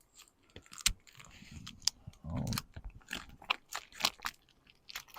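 Hard-to-open plastic package of hot links being twisted and pulled at by hand, giving an irregular run of sharp crackles and clicks as it resists opening.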